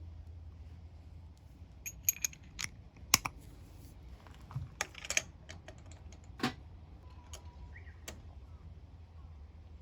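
Scattered, irregular clicks and light metallic clinks of hand tools and parts being handled during spark plug work, over a steady low hum.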